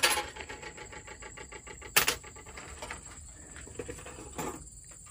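Quiet background noise broken by two short, sharp clicks, about two seconds and four and a half seconds in, with faint scattered ticks between them.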